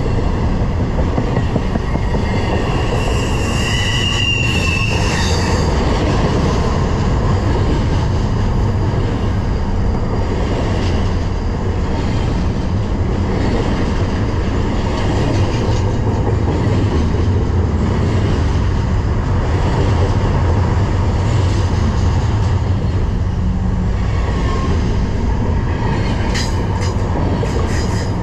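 Intermodal freight train rolling past on the rails: a steady, loud rumble of wheels and cars, with a brief high wheel squeal about four seconds in and a few sharp clicks near the end.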